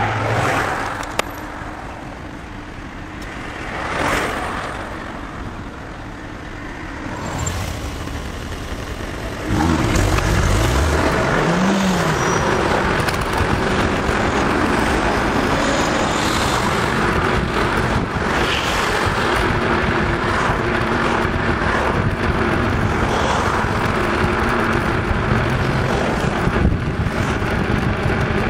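Cars passing by in swells, three times, on a city street. About ten seconds in this gives way to a loud, steady rush of bicycle tyre hum and wind on the microphone while riding along the road.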